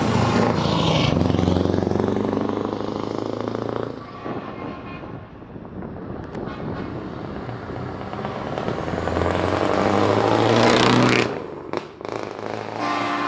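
Heavy trucks driving past one after another: a Scania truck's diesel engine is loud as it passes close, then fades. Another truck's engine grows louder as it comes up and goes past, then breaks off suddenly about eleven seconds in.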